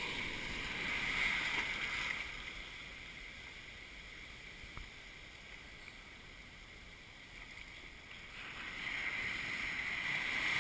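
Ocean surf washing around: a wash of water that eases off for a few seconds, then builds again near the end.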